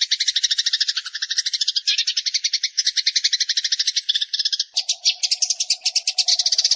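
Eurasian tree sparrows chattering in a dense, unbroken stream of rapid high call notes, about ten a second. A lower steady buzz joins the chatter about five seconds in.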